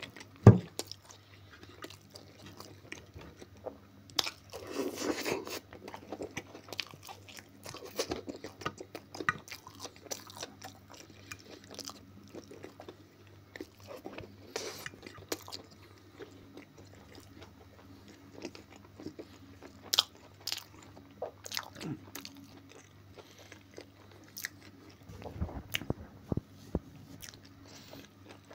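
A man chewing food close to the microphone, with wet smacking and crunchy bites coming in uneven bursts. He is eating Korean-style pig ears, fried potatoes and pizza.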